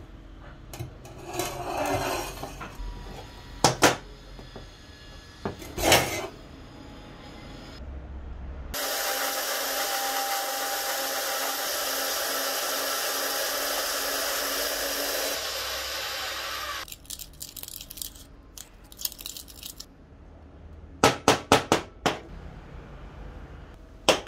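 Power band saw cutting through a rusty steel pipe, a steady loud noisy run lasting about eight seconds. Before it the pipe knocks and clanks a few times as it is handled. Near the end comes a quick run of sharp metal clicks.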